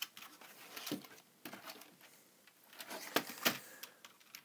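Scattered plastic clicks and light rattling from the bare Atari 1040STF keyboard as its key plungers are pressed and handled, with two louder clicks about three-quarters of the way through.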